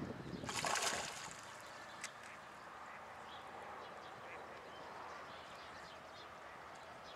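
A hooked carp splashes at the water's surface about half a second in, a short rush of noise lasting about half a second. A single sharp click follows about a second later.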